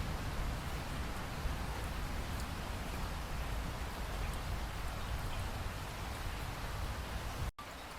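Steady rain falling, an even hiss with a deep low rumble and faint scattered drop ticks. Near the end it cuts out completely for an instant and resumes slightly quieter, like a splice in a looped recording.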